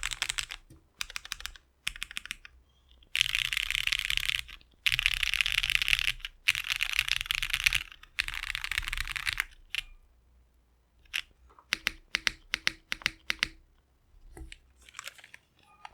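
Mechanical keyboard typing on a polycarbonate-case board with lubed and filmed Cherry MX Black Hyperglide linear switches and doubleshot ABS keycaps. Fast continuous runs of keystrokes through the middle give way to separate, spaced-out key presses, which then thin out and turn faint near the end.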